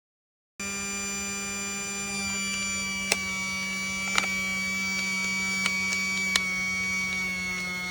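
Small battery motor of a Casdon toy Dyson cordless vacuum running with a steady buzzing whir, starting suddenly about half a second in, with a few sharp clicks over it.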